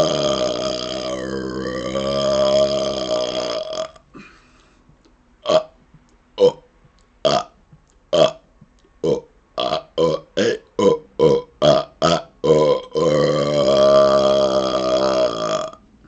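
A man belching on purpose: a long drawn-out burp of about four seconds, then a rapid-fire run of about a dozen short burps speeding up, and a second long burp of about three seconds near the end.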